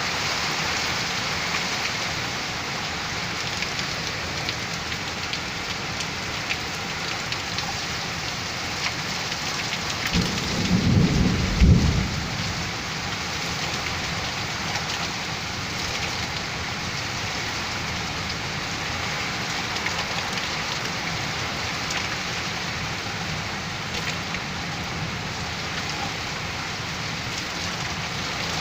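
Heavy rain falling steadily in a severe thunderstorm, with a loud low rumble of thunder lasting about two seconds roughly ten seconds in.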